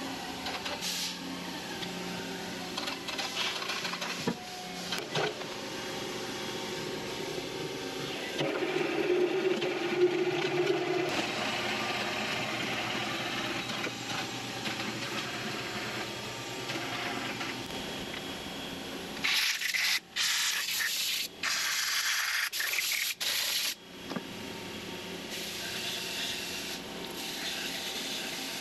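Machine-shop noise with a low hum during the hoist lift. Then about five seconds of loud hissing spray in short bursts, and softer hissing near the end as spray cleaner goes onto the horizontal mill's pallet.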